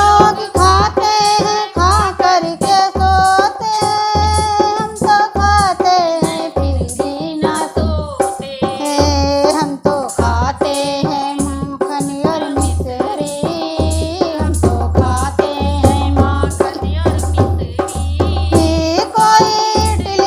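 Hindi devotional bhajan: a sung melody with a steady hand-drum beat.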